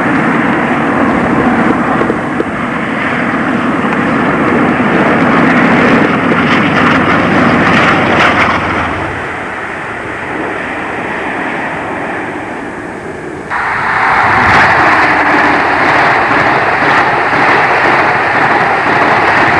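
A diesel locomotive hauling coaches runs past close beneath, its engine and the wheels on the rails building to a peak and then easing off. About 13 seconds in, the sound cuts abruptly to a High Speed Train running past at speed, a steady, higher-pitched rush.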